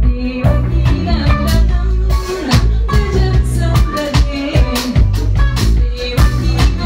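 Live band music with a horn section of baritone saxophone and trombone over bass and a drum kit keeping a steady beat.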